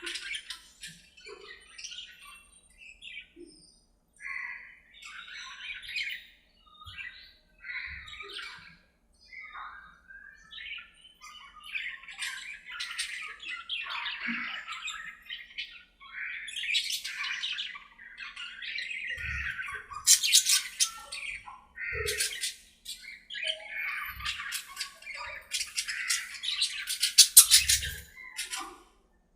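A flock of budgerigars chattering, with a continuous run of short chirps and warbles. The calls grow busier, and harsh, loud squawks break in about two-thirds of the way through and again near the end.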